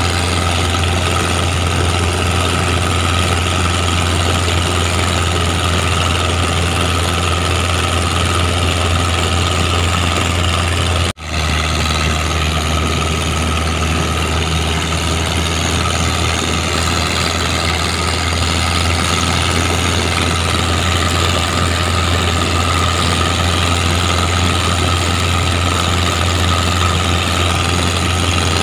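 Mitsubishi 4D31 four-cylinder diesel engine powering a boat, running at a steady speed with an even low hum. The sound cuts out for an instant about eleven seconds in and comes straight back.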